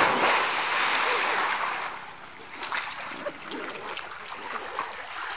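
A loud splash into the water of a concrete-lined well, then churning water dying away over about two seconds.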